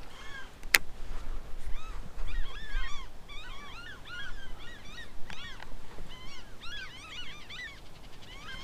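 Geese honking: many short, rapid, overlapping calls from several birds, starting about two seconds in and going on until near the end. A single sharp click comes just under a second in.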